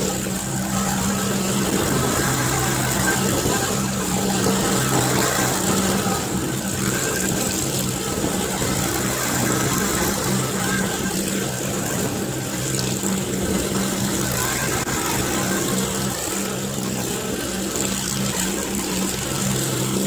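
Engine running steadily, with a low hum that swells and fades every second or two, heard from inside a vehicle's cabin.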